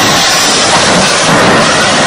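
Heavy tracked military vehicle driving hard over loose dirt: a loud, steady rumble of engine and running gear mixed with the rush of churned soil.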